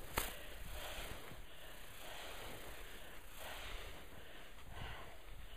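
A rake dragging through dry leaves in repeated scraping strokes, with a sharp tap from the rake just after the start.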